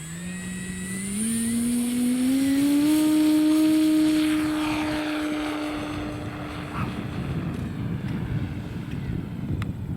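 Radio-controlled model airplane engine and propeller throttling up, the pitch rising in steps over the first three seconds and then holding steady. After about six seconds the tone fades under a noisy rumble.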